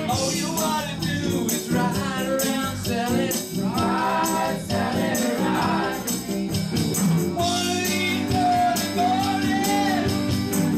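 Live band playing a song: a voice singing over electric guitar and an electronic drum kit keeping a steady beat.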